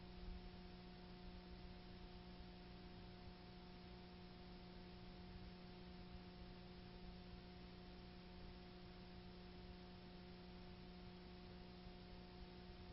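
Near silence: a faint, steady electrical hum of a few constant tones over a low hiss.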